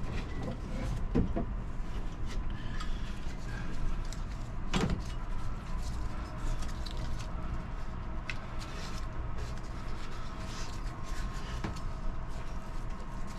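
Scattered metal knocks, clicks and scrapes of hand work fitting an alternator back onto a marine diesel engine, the sharpest knock about five seconds in, over a steady low hum.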